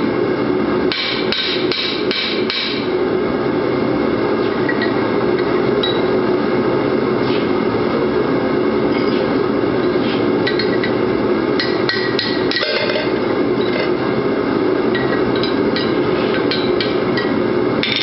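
Hammer blows ringing on a hex-stock rivet header die sitting on an anvil as a hot rivet is headed. About a second in comes a quick run of about five blows, then from about ten seconds on scattered lighter strikes as a punch drives the rivet out through the die. A steady roar from the running forge lies underneath.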